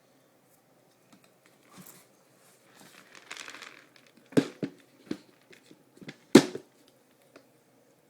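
A bag of dry cat food rustling and crinkling as it is handled, then a few sharp knocks and clicks, the loudest about four and a half and six and a half seconds in.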